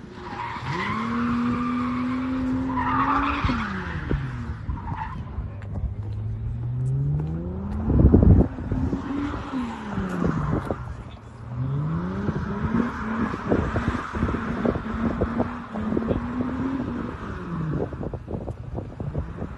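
A car's engine revving up and down through several long rises and drops while its tyres squeal for long stretches as it slides in circles, laying down tyre smoke. A loud burst of sharp cracks comes about eight seconds in, with more scattered cracks through the second half.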